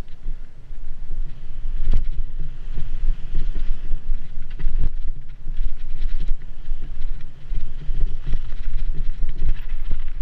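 Wind buffeting a mountain-bike action camera's microphone at speed, with the tyres rolling over a dirt trail and the bike knocking and rattling over bumps, two sharper knocks about 2 and 5 seconds in.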